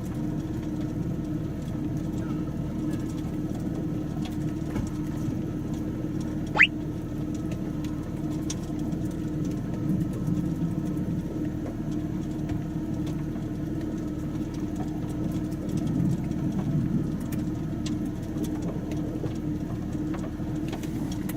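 Steady rumble and hum of a running vehicle heard from inside the cabin. About six and a half seconds in, a single short chirp rises sharply in pitch.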